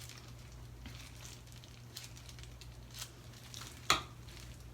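Faint rustling and soft squishing of hair being worked with purple hair dye at the ends, with scattered light clicks and one sharp click a little under four seconds in. A low steady hum runs underneath.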